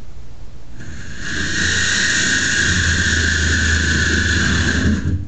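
Handheld electric power tool cutting thin 304 stainless steel sheet: it starts about a second in, runs steadily with a high whine over a gritty cutting noise and a low motor hum, and stops suddenly just before the end.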